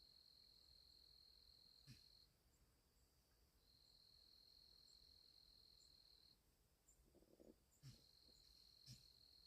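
Near silence with a faint, high, steady trill that comes in long stretches of two to three seconds, broken by three short soft thuds: one about two seconds in and two close together near the end.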